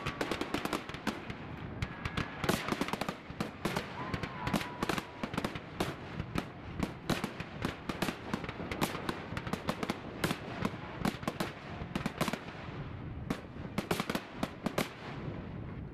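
Aerial fireworks shells bursting in a rapid, continuous barrage of bangs and crackles, many per second, thinning out near the end.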